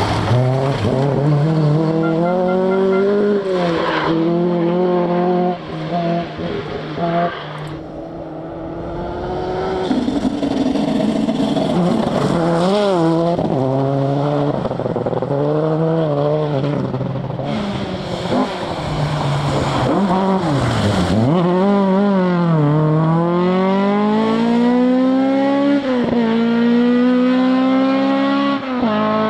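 Rally car engines driven hard on a special stage: revs climbing and falling as the drivers shift gears, lift off and brake, with a sharp drop in revs about two-thirds of the way through followed by a long pull up through the revs near the end.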